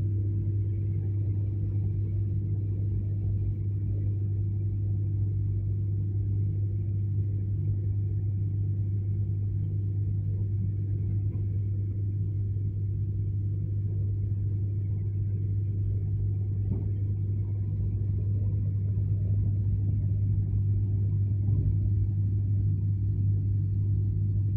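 Running noise inside the passenger car of an ER9m electric multiple unit under way: a steady low hum over a rumble, growing slightly louder near the end.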